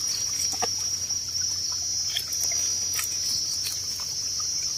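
Steady high-pitched drone of insects, with a few light clicks and rustles as a knife trims the stem of a red mushroom picked from wet leaf litter.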